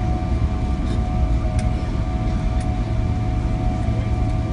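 Cabin noise inside a Boeing 777-300ER rolling along the runway after landing: a steady deep rumble with a few steady whining tones above it.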